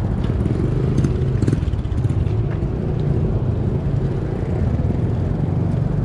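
Electric cargo bike being ridden on a street: a steady low rumble of tyres and road, with a couple of light rattles about a second in.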